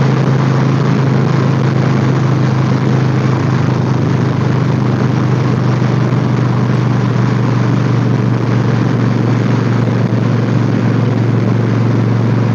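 Motorcycle engine running at a steady cruising speed, with a low steady drone under a constant rush of wind noise.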